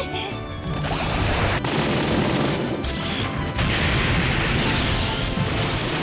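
Animated battle sound effects, several crashing blasts and explosions of a mobile-suit fight, over dramatic orchestral background music.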